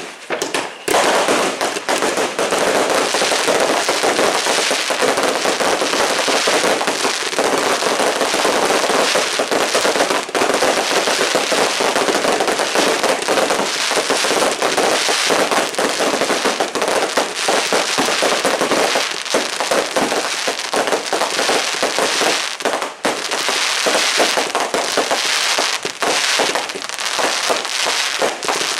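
Many fireworks and firecrackers going off at once: a dense, unbroken barrage of bangs and crackling with no pause.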